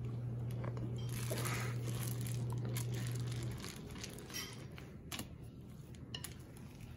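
A hand utensil stirring thick dough with chocolate chips in a glass mixing bowl, with soft scrapes and small clinks against the glass. A steady low hum runs under it and stops about halfway through.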